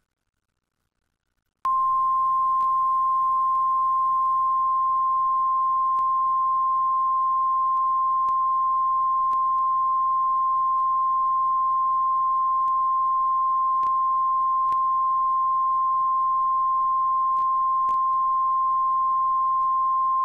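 Line-up reference tone accompanying SMPTE colour bars at the head of a videotape: one steady, unchanging pitch that starts about a second and a half in and cuts off suddenly at the end.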